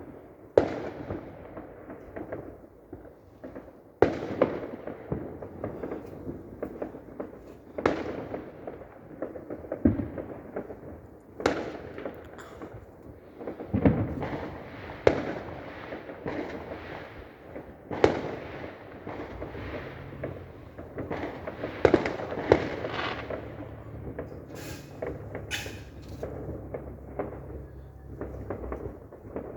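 Fireworks going off: a string of sharp bangs every few seconds, each with a short echoing tail, and crackling between them.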